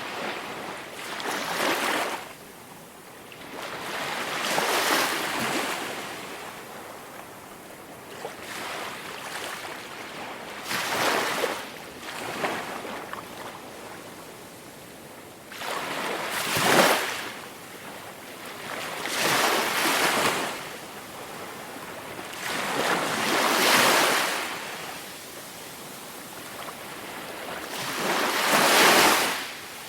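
Ocean waves breaking on a shore: a rush of surf that swells and fades again every few seconds, some surges louder than others.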